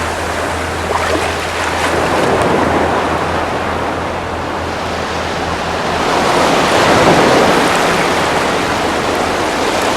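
Ocean surf breaking and washing up the beach, swelling louder about six seconds in, with a low rumble of wind on the microphone.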